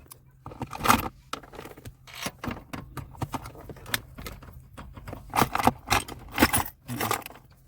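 Irregular metallic clinks, clatters and scrapes as a bolt is handled and fed by hand into its mounting hole in the dashboard.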